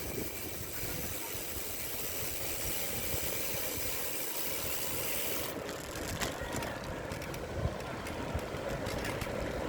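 A vehicle's engine running steadily with road noise. About halfway through the high hiss drops away abruptly.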